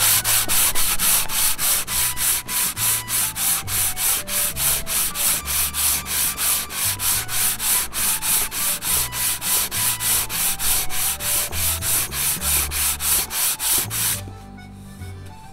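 Hand sander with 120-grit sandpaper scrubbed back and forth over a rough, unfinished wooden cutting board, an even rasping at about four strokes a second. It stops about fourteen seconds in.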